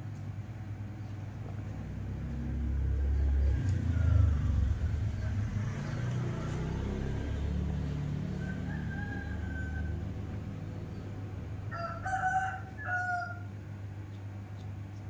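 A rooster crowing: a faint call around the middle, then a louder, broken crow about twelve seconds in. Under it, a low rumble swells and fades in the first half.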